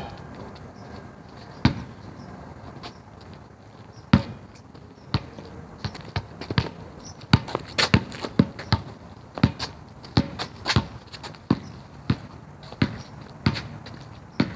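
A basketball bouncing on an outdoor court: a few single bounces, then steady dribbling at about two bounces a second from about halfway through.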